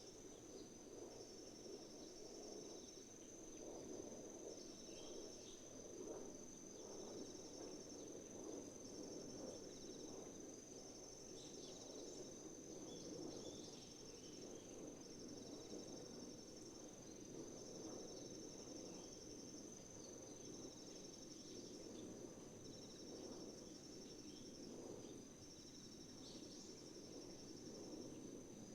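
Crickets trilling steadily in a high pitch, with a second insect chirping on and off in spells of about two seconds, over the low, even rush of a flowing river. A few faint bird chirps come through now and then.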